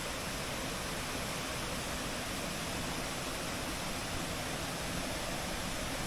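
Steady rushing of water from a rocky stream and waterfall.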